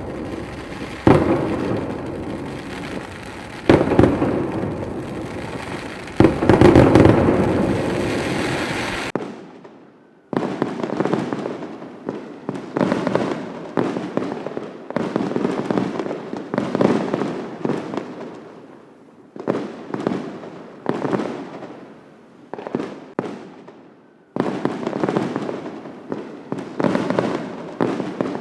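Aerial fireworks going off: sharp bangs, each followed by a trail of crackling. After a brief lull about a third of the way in, the bursts come in quick succession, roughly one a second.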